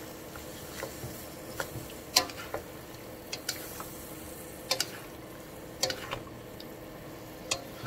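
Two wooden spatulas stir-frying vegetables and seafood in a wok: scattered irregular knocks of wood against the pan over a steady soft sizzle of the food cooking in a little added water.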